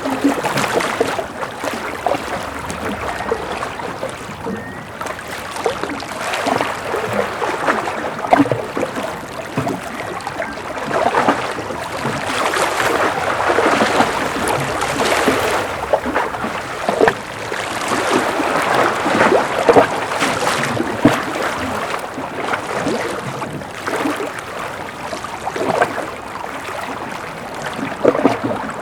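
Small ocean waves lapping and splashing against a breakwater, in irregular swells a few seconds apart with many small splashes.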